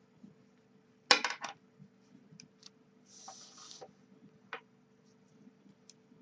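Metal knitting needles clicking against each other as stitches are knitted: a quick cluster of three clicks about a second in, a single click past the middle, and a few faint ticks, with a brief soft rustle just after halfway.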